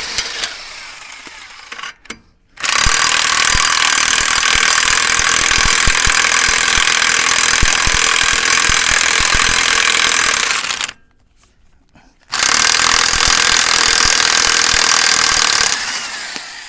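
Impact wrench running in two long bursts, about eight seconds and then about three and a half seconds after a short pause, spinning lug nuts off a truck wheel.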